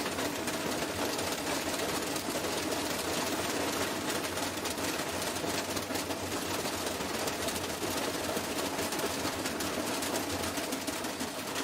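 Washing machine spinning with a brick inside, making a steady, rapid mechanical clatter and rattle.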